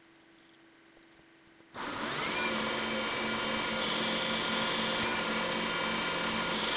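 Near silence for the first two seconds, then a metal lathe comes in, its pitch rising briefly before it runs steadily with a motor whine, turning an aluminium workpiece down to diameter.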